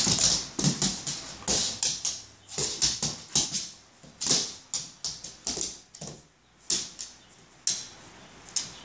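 A dog's claws clicking and scrabbling on a laminate floor as it pounces and turns after a laser dot, in about a dozen irregular quick bursts.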